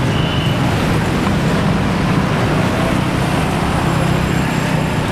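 Tour bus diesel engine running steadily close by, a low even hum over road and traffic noise.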